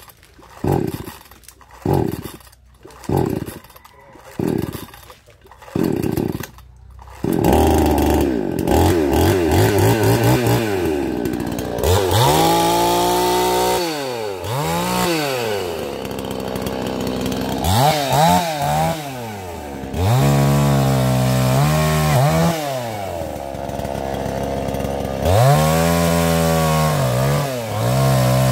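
Gasoline chainsaw being pull-started: a quick series of short cord pulls, about one a second, then the engine catches about seven seconds in and runs, its revs rising and falling again and again as the throttle is worked.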